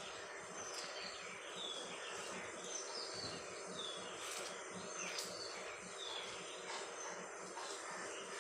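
Sugary rose-and-fruit-juice syrup at a rolling boil in an aluminium pan, a steady bubbling hiss, with a couple of sharp ticks near the middle. A high, short falling chirp repeats about once a second over it.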